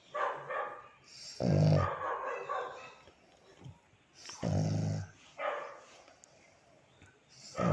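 Pug snoring in its sleep: three loud, low snores about three seconds apart, each followed by a breathier, higher sound.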